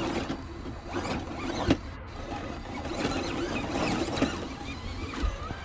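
Vanquish VS4-10 Origin RC scale crawler driving up a dirt and rock trail: its small electric motor and gear drivetrain running, with creaks and irregular clicks from the chassis and tyres on the rock, the sharpest about a second and a half in.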